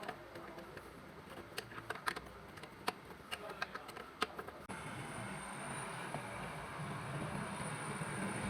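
Scattered clicks and light knocks, like tools being handled during engine work. About five seconds in, a steady hum with a faint high whine starts abruptly.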